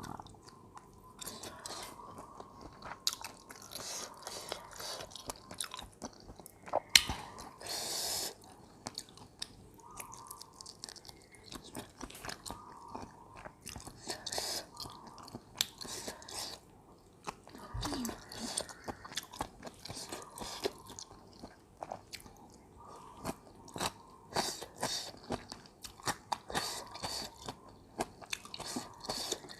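A person chewing and crunching food close to the microphone, with irregular crisp crunches and wet mouth clicks bite after bite. The food is spicy seafood papaya salad with raw vegetables, such as long peppers, bok choy and eggplant. One sharp click stands out about seven seconds in.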